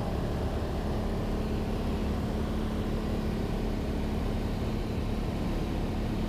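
Cessna 182's piston engine and propeller running steadily in flight, heard from inside the cabin as an even, low drone with a constant hum.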